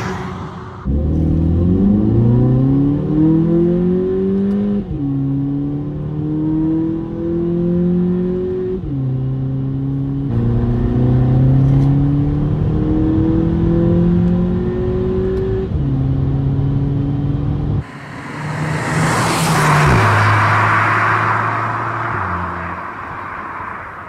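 Volkswagen Polo GTI's turbocharged 2.0 TSI four-cylinder heard from inside the cabin, pulling hard through the gears: the engine note climbs steadily and drops four times as it shifts up. Then the car accelerates loudly past, its note falling as it goes by, and fades into the distance.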